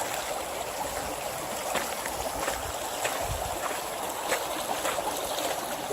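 Spring snowmelt runoff running down the trail as a steady stream of water, with a few faint clicks of footsteps.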